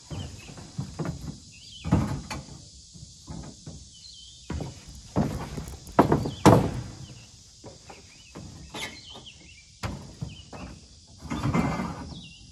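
Irregular knocks, thumps and metal clanks as steel ladder-stand sections are lifted and shifted on a wooden trailer and a pickup bed, mixed with steps on the truck bed. The loudest knocks come about six seconds in.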